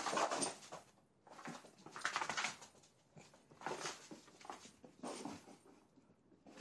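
A springer spaniel scrabbling and pattering about on the carpet and floor as it chases, in several short bursts of scuffling with quiet gaps between.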